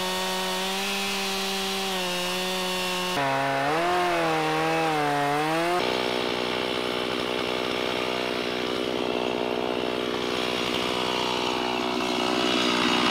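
Gas chainsaw cutting into the trunk of a dead ash tree. It runs at full revs, then the pitch drops and wavers about three seconds in as the chain bites into the wood. From about six seconds it runs on steadily at a lower pitch under load.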